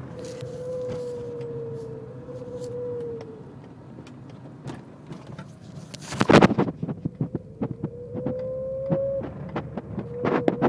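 A steady whine from a BMW E30 325, drifting slightly in pitch; it fades out about a third of the way in and comes back, rising a little, later on. A cluster of sharp clicks and knocks sounds in the middle and again near the end.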